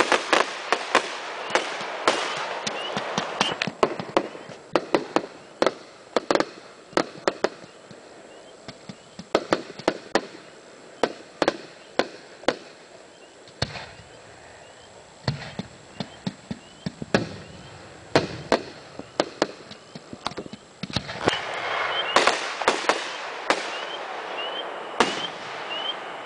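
Fireworks display: a rapid string of sharp bangs and crackles from bursting shells. They are densest at the start, thin out to scattered reports through the middle, and pick up again with a continuous crackle near the end.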